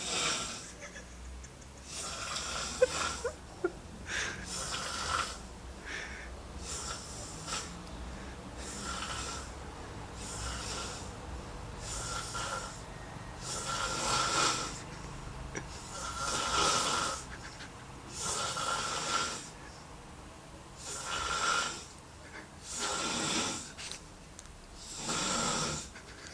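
A man snoring heavily in his sleep, one snore about every two to two and a half seconds, the later snores louder than the earlier ones.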